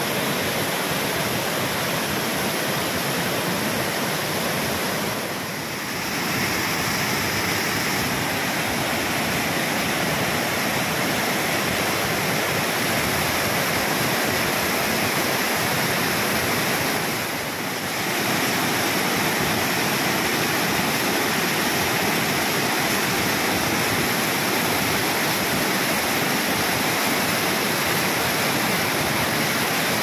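Waterfall cascading over rocks: a loud, steady rush of white water, dipping briefly twice.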